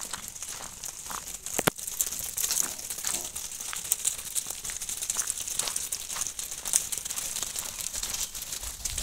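Hooves of a flock of fat-tailed rams clicking and scuffing on a gravel lane as they walk, a dense patter of many small irregular ticks, with one sharper click about a second and a half in.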